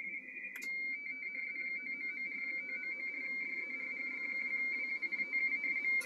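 RTTY data signal from a Yaesu FTDX-101MP transceiver's speaker: a steady tone near 2 kHz warbling rapidly between two close pitches (mark and space). A sharp click comes about half a second in and another at the very end.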